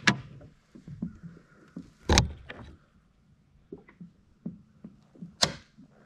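Handling noises in a plastic fishing kayak: a loud hollow thump against the hull about two seconds in, a sharp hit about five and a half seconds in, and light clicks and taps between.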